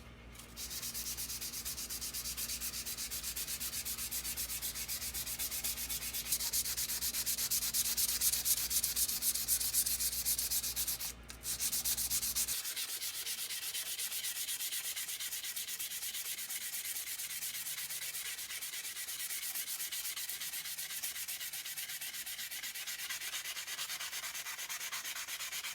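Continuous sanding on an old screwdriver, a dense steady rasping that briefly stops about eleven seconds in. A low hum underneath cuts off about twelve and a half seconds in.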